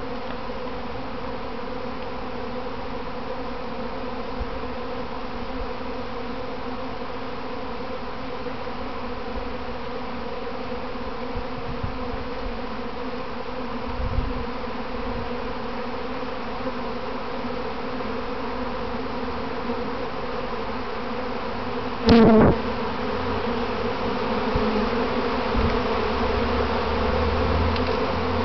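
Honeybee swarm in flight: the wingbeats of many bees blend into one steady, dense buzzing hum, growing a little louder toward the end. About three-quarters of the way through, a single brief, louder buzz sounds close by.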